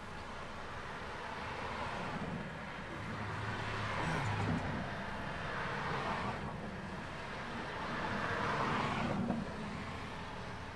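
Road traffic: a few cars passing one after another, the tyre and engine noise swelling and fading each time, loudest about four seconds in and again near the end.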